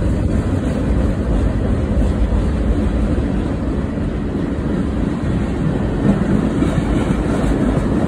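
Freight train cars rolling past, a steady low rumble of steel wheels on the rails.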